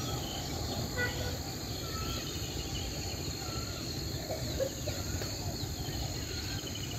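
Outdoor rural morning ambience: scattered bird chirps and short trills over a steady high-pitched insect drone, with a low steady rumble underneath.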